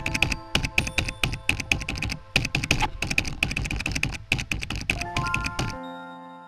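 Rapid typing on a computer keyboard, a fast run of keystrokes that stops about a second before the end, over soft ambient music.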